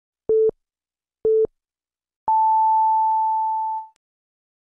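Electronic time-signal beeps: two short low pips a second apart, then one long tone an octave higher that fades out, in the pattern of a broadcast hourly time signal.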